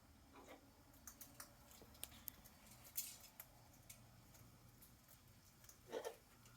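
Faint, scattered clicks and ticks of a parrot's beak nibbling at a food pellet, with a short, soft low sound about six seconds in.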